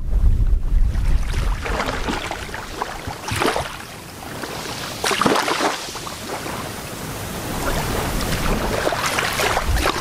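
Small, gentle waves lapping and washing up onto a shallow coral-sand beach, with separate washes swelling and fading about three times. Wind rumbles on the microphone in the first second or so.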